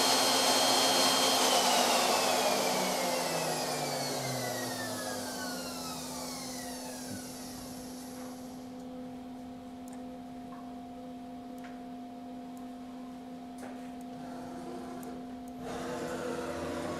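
CNC router spindle motor whining at speed, then switched off about a second and a half in and winding down, its whine falling steadily in pitch and fading over several seconds. A steady low hum carries on underneath, and near the end another machine sound starts as the gantry is jogged along its axis.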